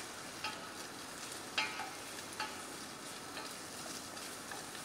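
Sliced red onion sizzling in oil in a stainless steel saucepan, stirred with a wooden spatula, with a few light knocks of the spatula against the pan.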